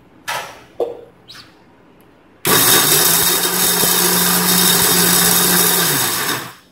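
A few short knocks as the mixer grinder's steel jar and lid are handled. Then the electric mixer grinder runs loudly and steadily for about four seconds, grinding dry dates, cashews, cardamom seeds and sugar, and its hum drops in pitch as it is switched off.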